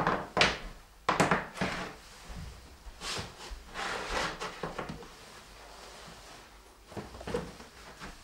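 Boots being pulled off and set down on the floor: a few sharp knocks and thuds in the first second and a half, then scraping and rustling about three seconds in, and another knock near the end as the slippers go on.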